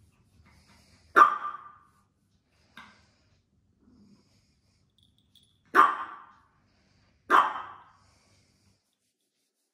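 A dog barking off and on: a single sharp bark about a second in, a faint short one shortly after, then two more about a second and a half apart.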